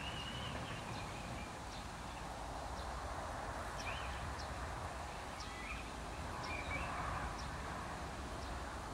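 Outdoor bird ambience: small birds give short, faint, high chirps every second or so over a steady low rumble of background noise.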